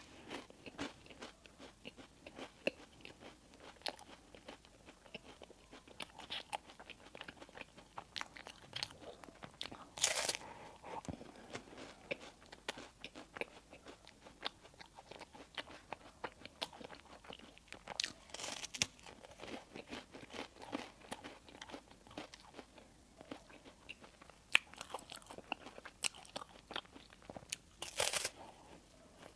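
Close-miked eating of bakery bread and pastries: steady chewing with many small crunchy clicks, and three louder crisp bursts, about a third of the way in, just past the middle and near the end.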